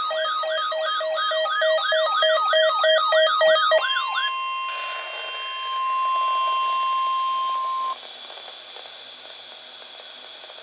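Electronic alert alarm warbling rapidly with steady beeps for about four seconds, then the steady NOAA Weather Radio warning tone, held for about four seconds until it cuts off abruptly, leaving radio hiss. The alarm is the lead-in to a flash flood warning broadcast.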